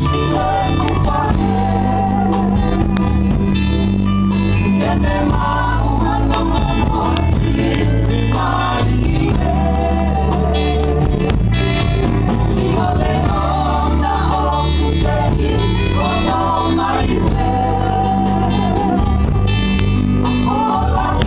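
Live gospel song: voices singing a melody over guitar and a steady line of low bass notes, without a break.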